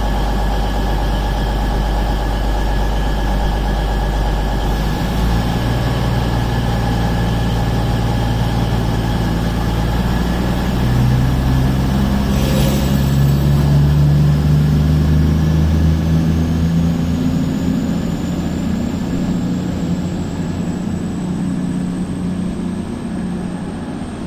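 CrossCountry Voyager diesel multiple unit departing: its underfloor diesel engines idle, then open up about five seconds in. The engine note climbs in pitch over the next several seconds and grows louder, then fades as the train draws away.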